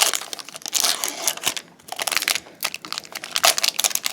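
Foil trading-card booster pack wrapper crinkling and crackling as it is handled and torn open by hand, in irregular bursts.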